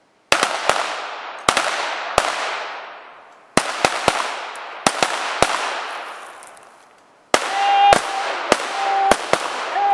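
A string of .22 rimfire pistol shots, about fifteen irregularly spaced cracks from several shooters firing at once in rapid fire, each trailing a long echo. A steady pitched tone sounds on and off during the last few seconds.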